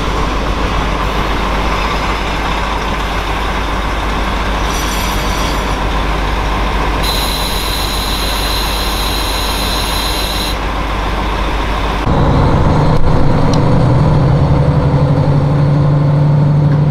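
A single-car KiHa 40 diesel railcar rolling slowly into the platform, its engine and wheels running, with a high brake squeal from about five seconds in, strongest for about three seconds. About twelve seconds in the sound cuts to a louder, steadier diesel engine drone heard from aboard a train, rising slightly in pitch.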